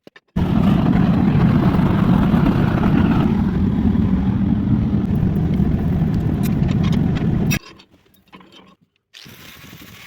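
A loud, steady mechanical rumble that starts abruptly and cuts off abruptly about seven seconds later.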